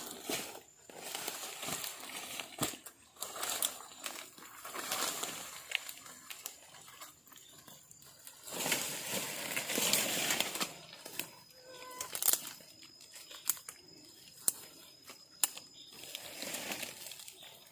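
Rustling and crinkling handling noise with scattered sharp clicks, over a faint steady high-pitched tone.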